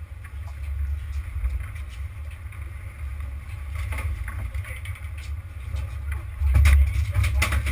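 Low, steady rumble of a sportfishing boat under way, engine noise mixed with wind on the microphone. About six and a half seconds in, louder music with drums comes in over it.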